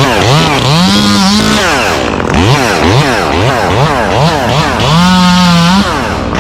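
Gas chainsaw engine revved in quick throttle blips, its pitch rising and falling about twice a second, held at high revs twice for under a second.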